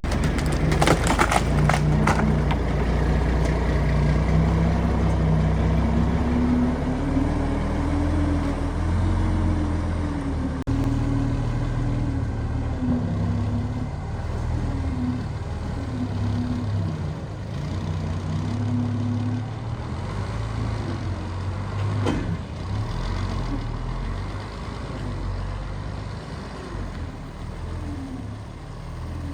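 Heavy diesel engine of a truck or crane running, its revs rising and falling. A quick clatter of knocks comes in the first two seconds, and the engine fades toward the end.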